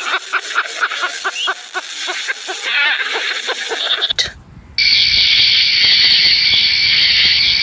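King penguin colony calling: many short pitched calls overlapping for about four seconds. After a brief drop about four seconds in, a steady high-pitched buzz takes over.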